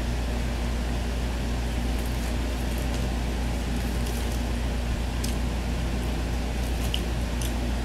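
Steady low mechanical hum of room background noise, with a few faint clicks and light rustles of plastic cutlery and paper food wrappers as a meal is eaten.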